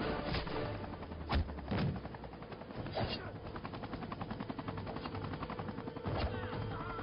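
Film sound mix of a helicopter's rotor chop, fast and even throughout, with several heavy hits about a second and a half, two and three seconds in and again near the end, over a held musical tone.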